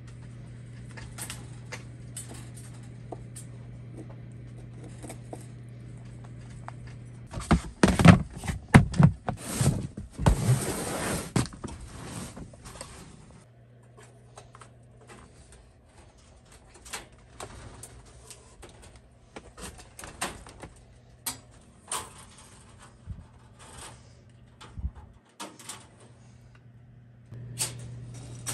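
Wire rabbit-hutch doors being closed and latched: scattered metal clicks and rattles, with a loud stretch of clattering and rustling from about eight to twelve seconds in. A steady low hum runs under the first quarter and comes back near the end.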